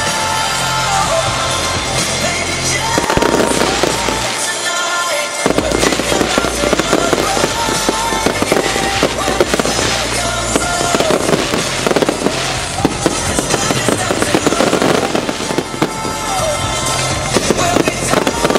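Fireworks bursting and crackling, the crackle growing dense from about five seconds in, with music playing throughout.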